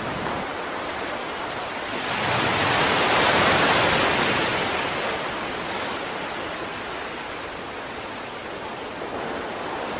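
Ocean surf: a steady rushing wash that swells about two seconds in, peaks, then slowly dies away.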